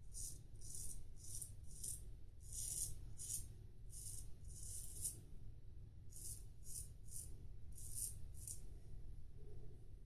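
A CV Heljestrand no 7 straight razor scraping through stubble in lather on the with-the-grain pass. It makes a run of short, rasping strokes, roughly two a second, with a brief pause a little past halfway; the strokes stop about a second and a half before the end.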